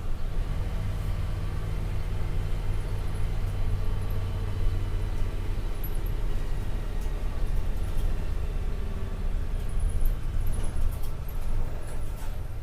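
MAN D0836 inline-six turbodiesel (256 hp) in a Volkswagen Volksbus 17.260 bus chassis, running steadily with a low, even engine note.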